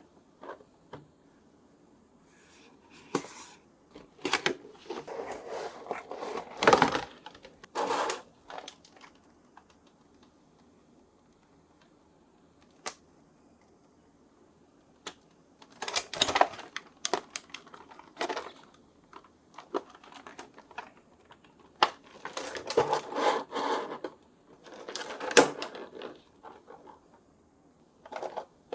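Toy packaging being handled and opened: bursts of clicks, crinkles and rustles, with quiet pauses between them.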